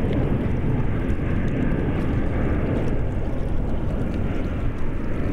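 Distant rumble of a Boeing 777-300ER's GE90 jet engines as the airliner rolls out on the runway after landing, a steady noise that eases slightly about three seconds in.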